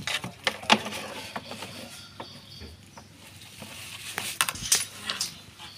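A run of light knocks, clatters and rattles as a baby macaque clambers over plastic containers and a plastic drum lid beside tin sheeting. The loudest knocks come under a second in and again after about four seconds.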